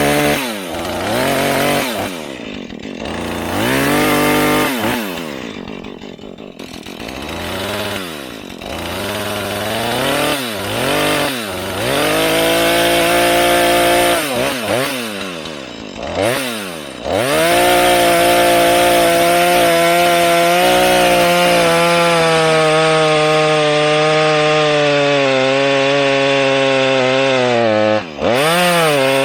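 Husqvarna 435 two-stroke chainsaw revving up and down in short bursts, then held at full throttle for about ten seconds with its pitch slowly sagging as it cuts through a small leaning tree, dropping off near the end before one more rev.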